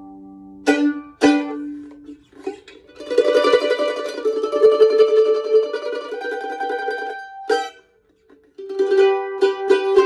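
Newly built mandolin with a red spruce top and curly maple back and sides, played with a pick. Two strummed chords come in the first second and a half, then a run of rapid tremolo-picked notes, a short break near eight seconds, and picking resumes. The instrument has been under string tension only about an hour and is not yet broken in.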